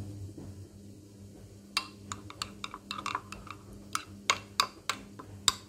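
Metal spoon clinking against a ceramic bowl while stirring yogurt: a quick, irregular run of sharp ringing taps starting about two seconds in. A low steady hum sits underneath.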